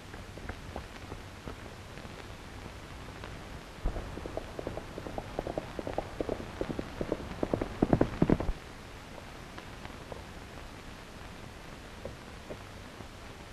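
Horse hoofbeats clattering on rocky ground, starting about four seconds in, growing louder and cutting off suddenly about halfway through, over the steady hiss of an old film soundtrack.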